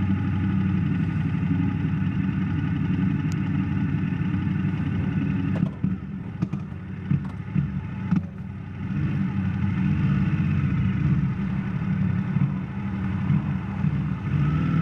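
2017 Yamaha MT-07's parallel-twin engine running steadily just after a cold first start. A few sharp clicks and knocks come between about six and eight seconds in as the engine note dips, then it runs on.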